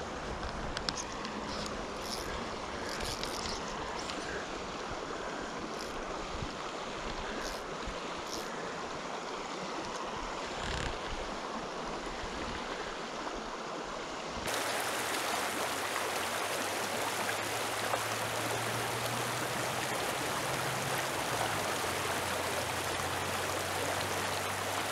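Shallow mountain creek running over cobbles, a steady rush of water. About halfway through it becomes louder and fuller.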